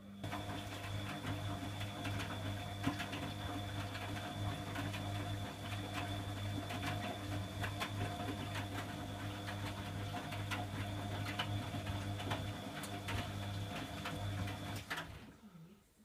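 Bosch WFG2020 front-loading washing machine's motor turning the drum on a Cotton 60 programme: a steady hum with many small clicks and knocks from the tumbling wet laundry. It starts suddenly and cuts off about a second before the end.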